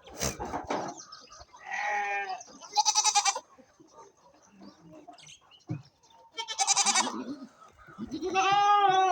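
Goats bleating: about four loud calls, two of them with a quick quavering tremble and the last one long and bending in pitch. There is a short burst of noise at the very start.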